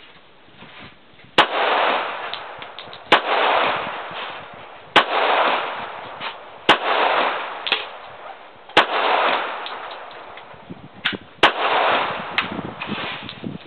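Colt 1911 .45 pistol firing single shots at a slow, even pace, about seven shots roughly two seconds apart, each crack followed by about a second of echo.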